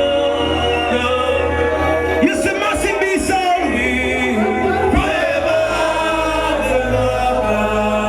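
Reggae/dancehall record playing over a sound system: a male singer over a steady deep bass line, with the bass cutting out for about a second and a half a little over two seconds in.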